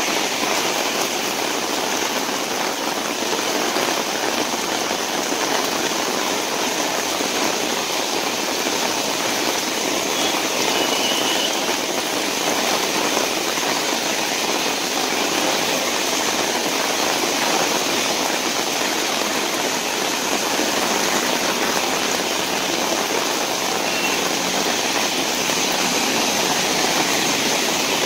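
Heavy rain pouring steadily on a wet road: an even, dense hiss with no let-up.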